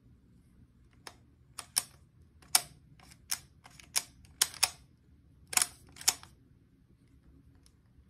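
Mercedes electronic ignition switch (EIS) and its key fob clicking as the fob is pulled out, pushed back in and turned in the switch: about a dozen sharp, uneven plastic clicks from about a second in until about six seconds in. The switch is faulty, working only intermittently, and the key is sticky on the way out.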